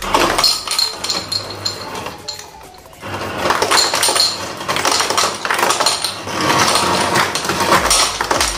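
Refrigerator door ice dispenser dropping ice into a bowl, the ice clattering against the bowl, with a brief pause about two and a half seconds in before it starts again.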